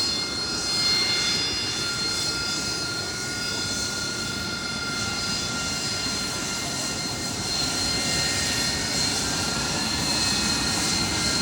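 Two AV-8B Harrier jump jets with their engines just started, running on the ground: a steady jet rush with high, even turbine whine tones, a few of them rising slightly in pitch in the second half.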